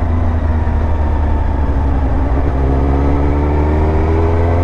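Suzuki GSX-R1000 K2's inline-four engine running under way, its pitch sagging slightly and then rising steadily from about halfway as the bike accelerates, over a steady low rumble.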